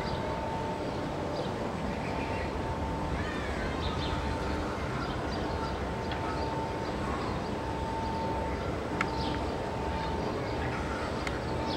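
Outdoor amusement-park ambience: a steady noise with a faint continuous hum, scattered short chirps, and a sharp click about nine seconds in.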